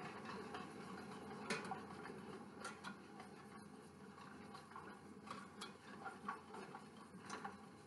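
Faint, irregular clicks and scrapes of a wire whisk against a stainless saucepan as a lemon filling is whisked while it cooks and thickens.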